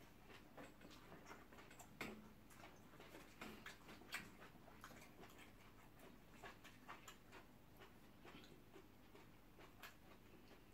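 Faint, scattered small clicks and taps of people eating at a meal, a few a second, with slightly louder ones about two seconds and four seconds in.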